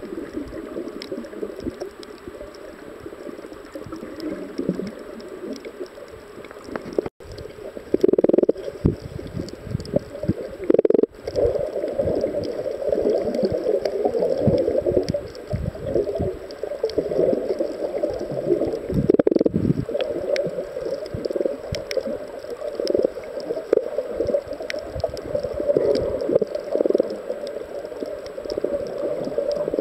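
Muffled gurgling and rumbling of moving water, heard through a camera held underwater, with a few louder surges.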